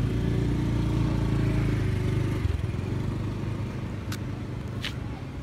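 A motor vehicle engine running steadily at low revs, then fading after about two and a half seconds. Two sharp clicks come near the end.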